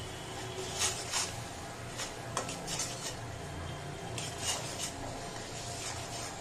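A metal spoon scraping and clinking against a metal karahi in short strokes as spices are stirred in hot oil.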